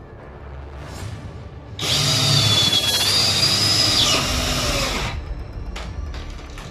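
A power tool runs for about three seconds with a harsh, noisy whine, starting about two seconds in and stopping abruptly.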